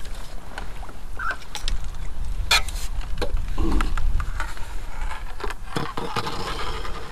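Scattered knocks and clicks of fishing tackle being handled on a seat box, with a landing net and pole. A steady low rumble runs underneath.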